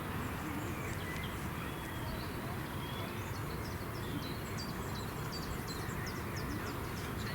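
Many short, high bird chirps over a steady background rumble.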